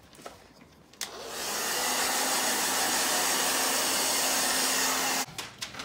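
Handheld hair dryer switched on about a second in, rising to a steady rush of blowing air with a low hum under it, then switched off shortly before the end.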